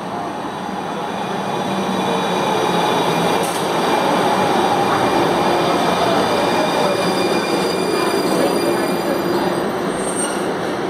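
Houston METRORail light-rail train pulling into the platform and slowing as it passes, its noise growing over the first few seconds and then holding steady. A whine falls in pitch as the train slows to a stop.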